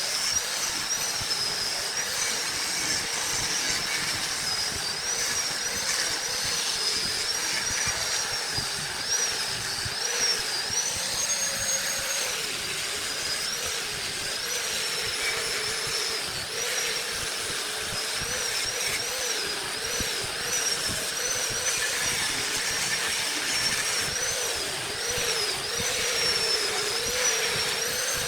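Wood lathe running, its motor whine wavering up and down in pitch, over a steady hiss that fits a tool cutting the spinning wood.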